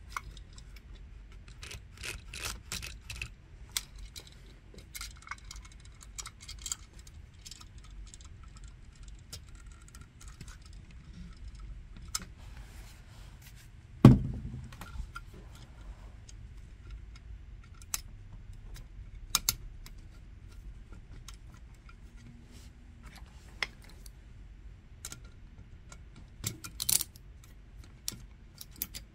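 Scattered light metallic clicks and clinks of a receptacle and its wire-nutted leads being handled and pushed into a shallow metal electrical box. A single loud thump comes about halfway through.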